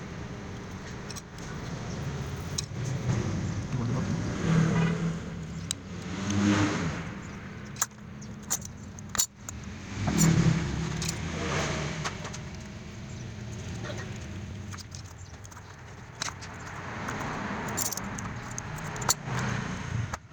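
Electric drill motor running in bursts, speeding up and slowing down several times, with sharp clicks between runs.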